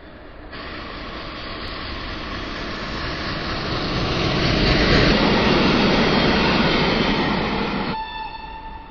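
Historic train hauled by the E626 electric locomotive approaching on the line: a rushing rail rumble that grows steadily louder, peaks a little past halfway, then drops off sharply near the end.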